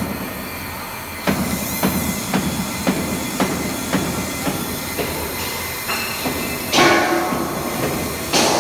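CNC foam cutting machine running, with a steady hum and a regular click about twice a second; a louder hissing burst comes near the end.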